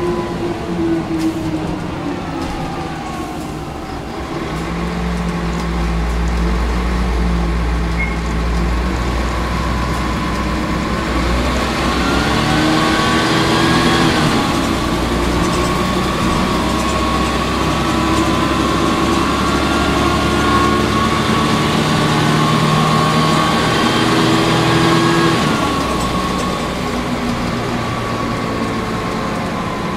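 Volvo B10L city bus's diesel engine heard from inside the cabin, pulling away about four seconds in and accelerating through the gears of its ZF automatic gearbox, with one upshift around the middle. A steady whine runs alongside, and the engine eases off near the end.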